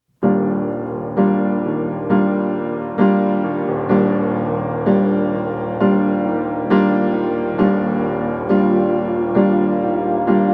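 Background piano music: gentle, slow chords or notes struck about once a second and left to ring.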